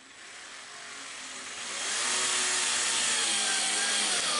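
Cordless drill driving a screw through a nylon strap and washer into the plastic wall of a cooler, the screw cutting a new hole. The motor whine builds over the first two seconds, then runs steadily with its pitch wavering slightly under load.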